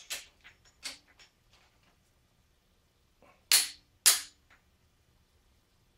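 Click-type torque wrench breaking over at its 65 foot-pound setting as cylinder head bolts are tightened: a few lighter clicks near the start, then two loud sharp clicks about half a second apart past the midpoint, each marking a bolt reaching torque.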